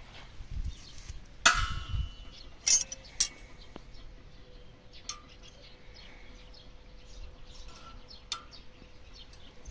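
Forged iron trammel hook and hanging chains clinking against a steel pan lid as they are handled: a handful of sharp metallic clinks, the loudest about a second and a half in, with a short ring after it.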